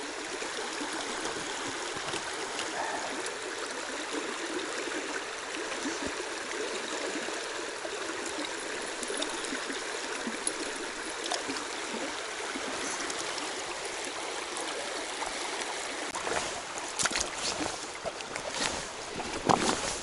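Shallow mountain stream running over stones, a steady rushing of water. Near the end come a few short sharp knocks.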